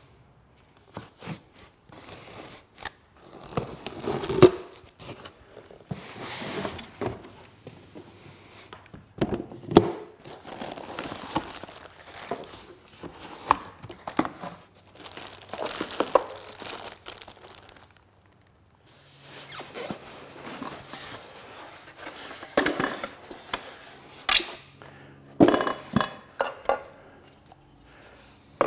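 Unpacking a cardboard shipping box: cardboard flaps scraping, plastic wrap crinkling and tearing, and occasional thunks as the foam-packed sewing machine is handled. The sounds come in irregular bursts, with a short lull about two-thirds of the way through.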